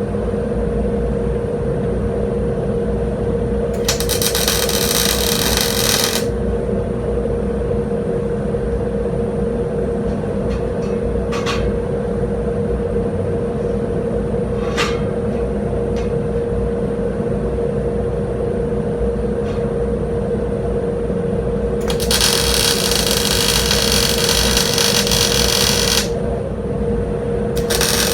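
MIG welder laying weld beads on the steel shank: bursts of crackling hiss lasting a few seconds, three times, over a steady machine hum. Two short clicks fall between the first and second bursts.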